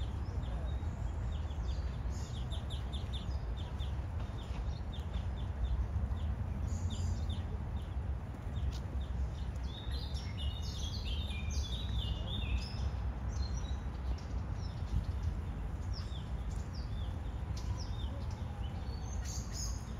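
Small birds chirping in short, repeated calls, with a quicker run of falling notes about halfway through, over a steady low background rumble.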